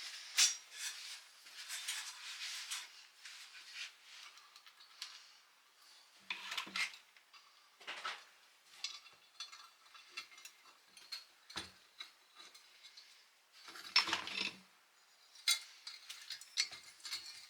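Small metal parts and tools clinking and scraping on a workbench during an oil pump rebuild: a string of separate sharp clinks with short scrapes between them, the loudest about 14 seconds in.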